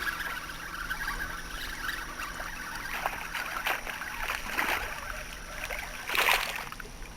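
Water splashing at the surface several times as a small hooked redfish is reeled in, the loudest splash a little after six seconds in.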